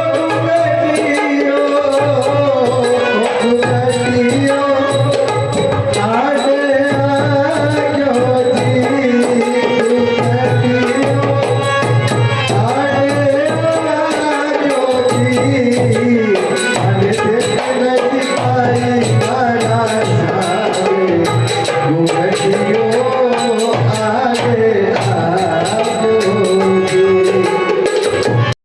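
Devotional Indian bhajan music: tabla keeping a steady rhythm under a gliding, ornamented melody line, stopping abruptly at the end.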